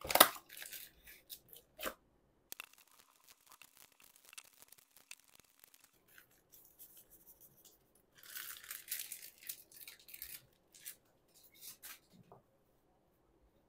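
Trading card booster pack wrappers being torn open: two sharp rips in the first two seconds. Then quieter crinkling and rustling of the wrappers and cards as they are handled, with a louder rustle about eight to ten seconds in.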